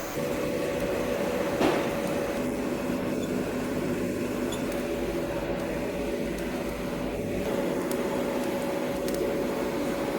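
Orbital TIG welding machine running: a steady electrical hum with a constant whine, with a short click about two seconds in.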